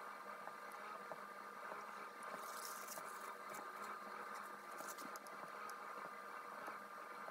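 Faint scratchy ticks from a watercolour brush being worked, in two short clusters, about two and a half seconds in and again near five seconds, over a steady low background hum.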